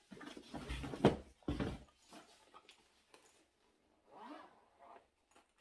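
A fabric cosmetic bag being handled: rustling and dull thumps with a sharp knock about a second in, then the bag's zipper being pulled open.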